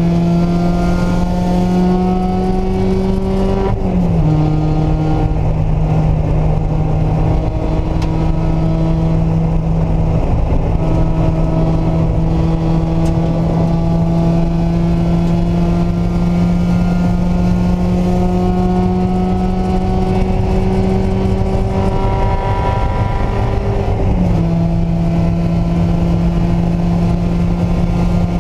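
Mazda Miata's four-cylinder engine pulling hard on track, revs climbing to an upshift about four seconds in, then rising slowly for a long stretch in the higher gear before another shift drops the revs late on.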